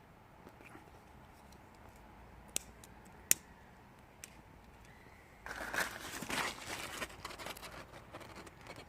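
Wood fire of damp wood burning: two sharp pops a little under a second apart, then about halfway through a dense stretch of crackling and rustling.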